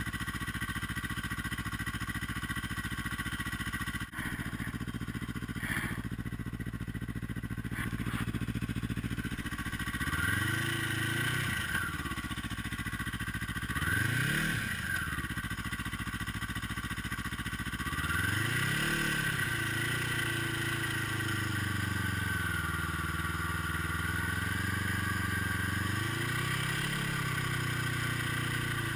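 Yamaha snowmobile engine running while riding: steady for the first several seconds, then rising and falling in pitch several times as the throttle is opened and eased off.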